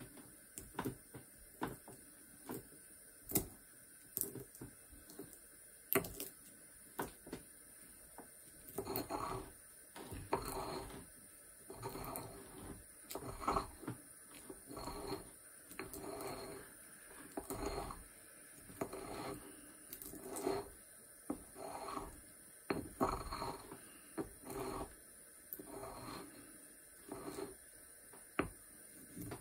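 Mortar and pestle grinding sage. A few scattered sharp taps at first, then from about eight seconds in a steady rhythm of short grinding strokes, a little more than one a second.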